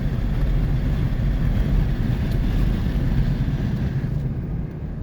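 Steady car cabin noise while driving: a low road-and-engine rumble with a hiss over it. The high hiss eases off about four seconds in.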